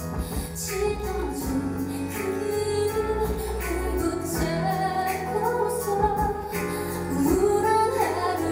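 Pop ballad with a woman singing over a steady beat and accompaniment.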